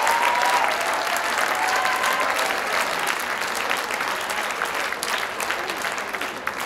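Audience applauding, a dense patter of hand claps, with a few voices calling out in the first couple of seconds. The clapping slowly thins and grows quieter toward the end.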